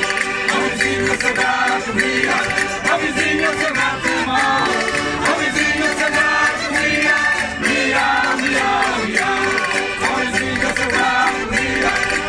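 A folk group singing a Portuguese folk song together in chorus, men's and women's voices at once, with a hand-held wooden percussion instrument keeping a steady beat.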